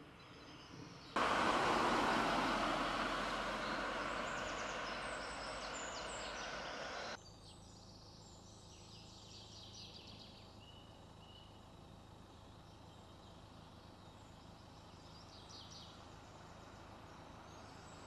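Forest ambience with birds chirping now and then, broken about a second in by the loud rushing noise of a car going by on the road, which fades slowly over several seconds and then cuts off abruptly.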